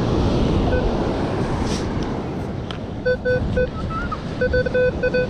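Minelab Equinox metal detector giving short, repeated beeps at one low-mid pitch as the coil is swept back and forth over a buried target: a light 12 target-ID signal, which turns out to be a nickel. Wind buffets the microphone and surf washes throughout.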